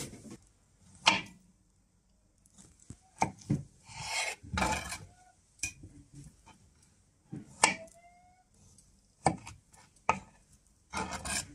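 Kitchen knife slicing avocado on a cutting board: a dozen or so sharp, irregular knocks of the blade on the board, with a short scraping noise about four seconds in.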